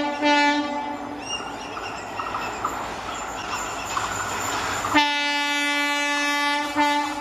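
Train horn sounding on one steady pitch, a blast that stops about a second in and another that begins about five seconds in with a short break near the end. In between, a passing train rumbles with a faint clickety-clack of wheels.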